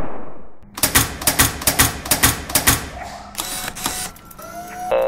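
The fading tail of a loud blast, then a run of about ten sharp mechanical clacks, some four or five a second, like typing. Quieter rapid ticking and a few short pitched tones follow near the end.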